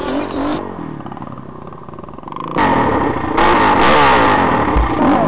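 A KTM SX 450 motocross bike's single-cylinder engine runs after background music cuts out about half a second in. From about two and a half seconds in it is revved hard, its pitch rising and falling in repeated blips.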